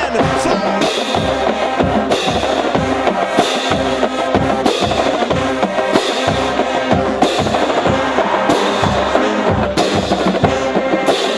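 Marching band playing, with held brass chords over a drumline: regular bass drum hits, snare, and a bright crash about every second and a half.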